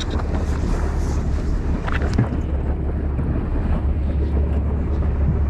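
Wind buffeting the microphone over the steady low rumble of a fishing boat on open water, with one brief knock about two seconds in.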